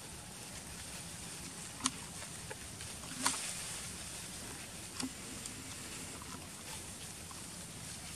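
Steady outdoor background hiss broken by three sharp crackles, about two, three and five seconds in.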